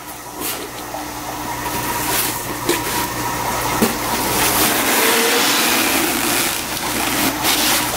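Cardboard box flaps and a styrofoam shipping cooler being handled: continuous rustling and scraping with small knocks as the foam lid is worked loose and lifted off the cooler.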